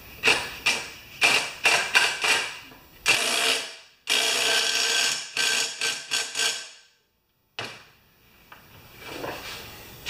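Cordless impact driver with a socket extension driving the mower's blade bolt: several short bursts, then two longer runs as it hammers the bolt tight, then it stops about seven seconds in. Fainter handling sounds follow near the end.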